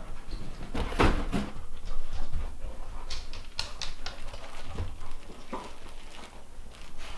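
A rough collie and an Australian shepherd moving about and playing with new toys, with scattered short clicks and scuffs.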